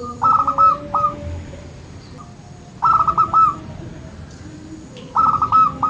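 Zebra dove (perkutut) singing its cooing song three times, each phrase a quick run of short notes ending in a longer drawn-out note. Faint higher chirps of other birds sound behind.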